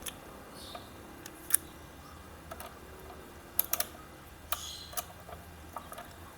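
Irregular light clicks and taps of screws and a hand screwdriver being handled while fastening a bracket with screws. The sharpest click comes about a second and a half in, and a quick run of three follows around three and a half seconds in.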